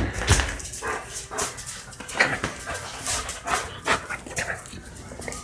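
Pet dogs making short, excited dog sounds, among scattered clicks and knocks, with a thump at the very start.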